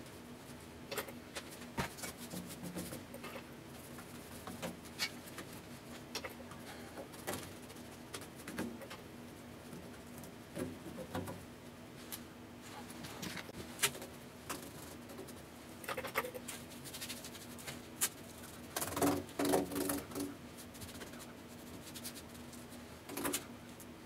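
A paintbrush scratching and dabbing thick black paint onto a steel loader bucket, in short irregular strokes and taps, busiest a few seconds before the end. A steady low hum runs underneath.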